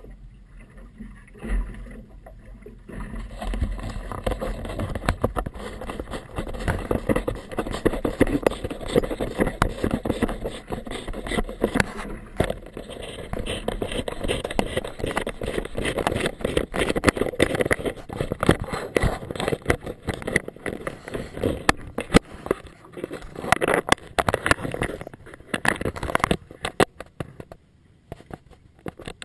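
Rough, crackly noise of wind and choppy water on a small inflatable motorboat, picked up through a housed action camera, with many knocks and scrapes. It is quieter for the first few seconds and dips briefly near the end.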